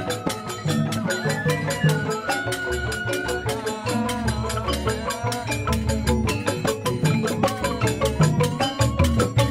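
Balinese joged bumbung gamelan: bamboo xylophones struck with mallets in fast, dense patterns, with drum beats underneath.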